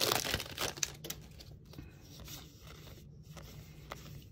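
Foil booster pack wrapper crinkling and tearing as the cards are pulled out of it, loudest in the first second. After that it dies away to a faint rustle and a few light ticks as the cards are handled.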